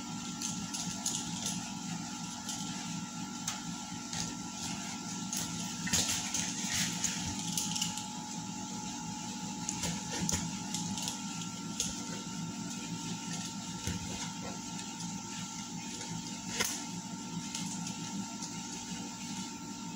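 Clear packing tape being picked at and peeled off a cardboard box, with irregular crackling and scratching of tape and cardboard and a few louder snaps. A steady hum runs underneath.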